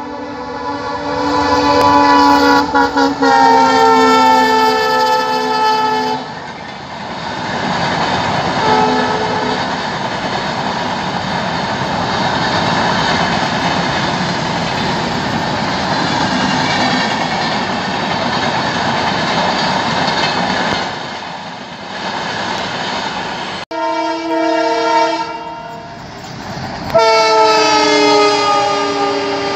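Indian Railways diesel locomotive horns as two express trains pass at speed. A WDP4 sounds a long multi-note horn that drops in pitch as it goes by, and its LHB coaches follow with a steady rolling noise of wheels on the track. Near the end a second diesel locomotive, a WDM3D, sounds its horn twice, each blast falling in pitch as it passes.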